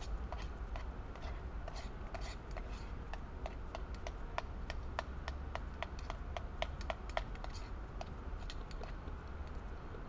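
A metal spoon scraping and clinking against the inside of a small metal camp pot, a quick series of sharp clicks, about two to three a second, over a steady low rumble.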